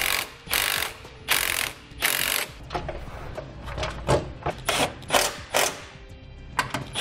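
Red Milwaukee cordless driver running in a series of short bursts, each about half a second long, as it drives bolts back in.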